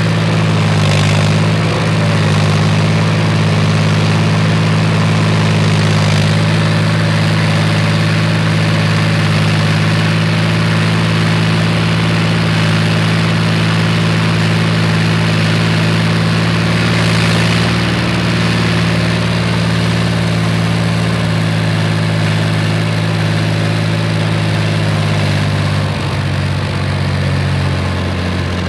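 BVP-1 infantry fighting vehicle's UTD-20 V6 diesel engine running steadily while the vehicle drives over a muddy track, with track clatter and wind, heard from on top of the hull. The engine note drops slightly near the end.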